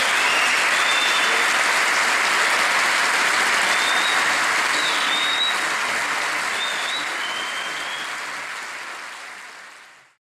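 Audience applauding steadily, then fading out over the last few seconds to silence.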